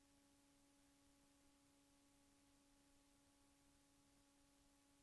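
Near silence: a very faint, steady hum-like tone with a few evenly spaced overtones over faint hiss, unchanging throughout.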